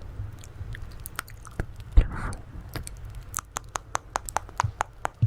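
ASMR mouth sounds close to the microphone: wet tongue and lip clicks, sparse at first and then coming quickly, about five a second, in the second half, with one louder thump about two seconds in.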